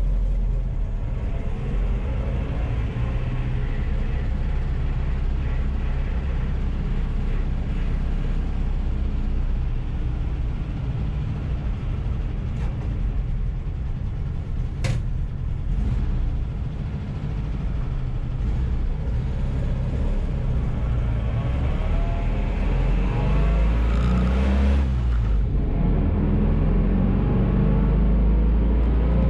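Engine and road noise heard from inside a moving vehicle: a steady low rumble, with the engine note shifting in pitch in the second half.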